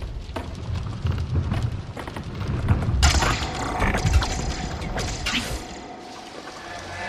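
Film sound effects of the tyrannosaurus coming through the paddock fence: deep, heavy thuds and rumbling, with a run of sharp creaks and cracks in the middle, over steady rain. The rumbling dies away about two-thirds of the way through.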